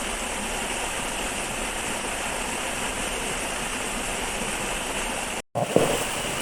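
Steady rush of flowing river water, an even unbroken noise. It cuts out for an instant about five and a half seconds in, then resumes with a couple of short knocks.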